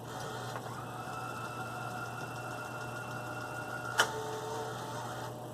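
Toshiba V-M30 Beta VCR tape mechanism running with a steady motor whine. About four seconds in there is one sharp mechanical click, after which the whine carries on at a slightly changed pitch and stops shortly before the end.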